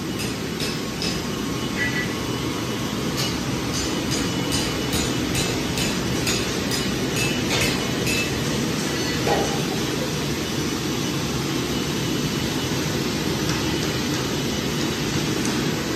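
Dry cereal rattling and clicking as the box is handled and the cereal is poured into the hollow sole of an overgrown horse hoof, mostly in the first half, over a steady low rumble.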